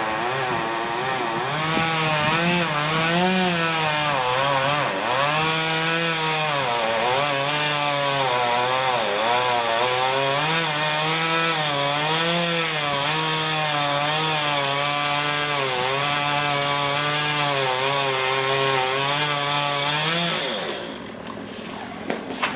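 Two-stroke chainsaw cutting wood at high revs, its pitch dipping and rising as the chain bites and frees in the cut. Near the end the engine drops back sharply.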